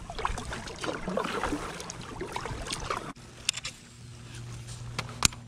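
Water sloshing and lapping against a plastic kayak hull, with small knocks. About three seconds in it gives way abruptly to a quieter steady low hum broken by a few sharp clicks.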